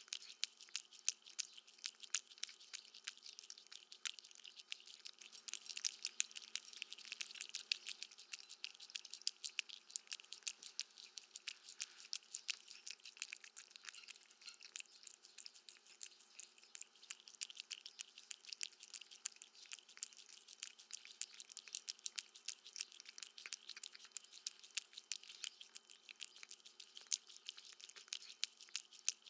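A cat eating, with rapid crunching and chewing clicks throughout.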